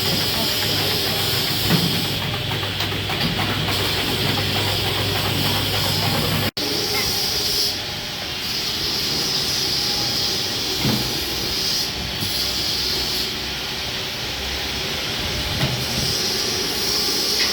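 Porang (konjac) slicing machine running with a steady, noisy whir over a low motor hum. The sound breaks off for an instant about six and a half seconds in and then carries on.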